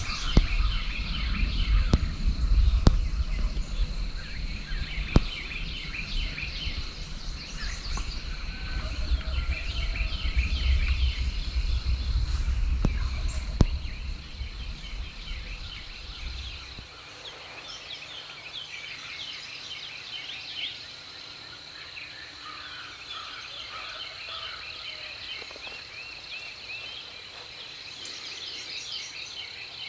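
Morning chorus of many birds calling, with a wild turkey tom gobbling now and then, over a steady high trill. A low rumble underneath stops a little past halfway.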